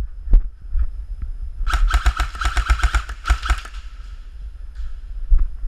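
Airsoft electric gun firing a fast full-auto burst of about two seconds, starting about a second and a half in. Dull low thumps run under it.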